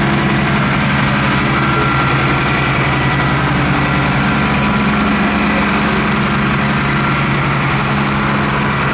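Large truck diesel engine idling steadily with an even throb.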